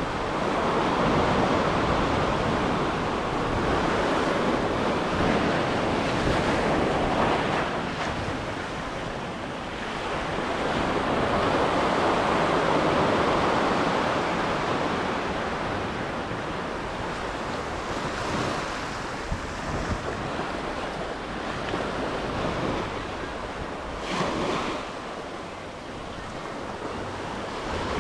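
Surf washing in over a rocky reef shoreline in slow surges, two bigger swells rising and ebbing, with wind rumbling on the microphone.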